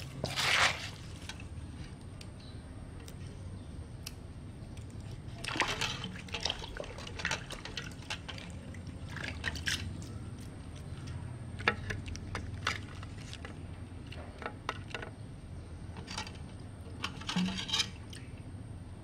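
A plastic spatula stirring raw shrimp salad in a mortar: scattered short wet squishes and scrapes, the loudest about half a second in, over a low steady hum.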